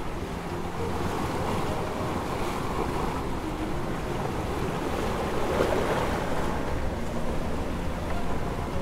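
Breaking waves and water rushing along the hull of a 30-foot sailing yacht under way in rough, steep seas, with wind buffeting the microphone. A louder surge of water comes about halfway through.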